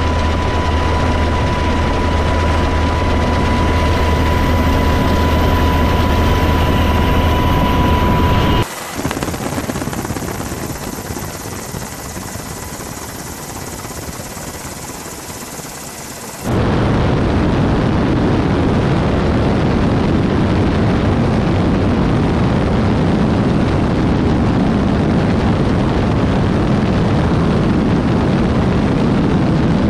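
Steady engine and rushing noise of an aircraft in flight, heard from on board, with a steady high whine in the first part. The sound changes abruptly twice, at about 9 and 16 seconds in. The middle stretch is quieter, and the last is an even, loud rush.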